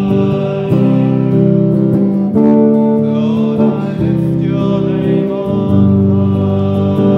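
A man singing a worship song to his own guitar accompaniment, with long held notes that change every second or so.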